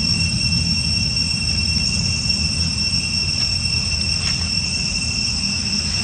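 Insects droning steadily outdoors in two high, even tones, over a loud low rumble.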